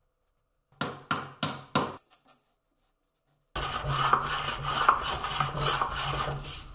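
A hardwood bow-tie key is tapped into its recess across a crack in the tabletop: four sharp wooden knocks about a third of a second apart, then a few fainter ones. After a short pause come rapid rubbing and scraping strokes as the key is worked flush with the surface.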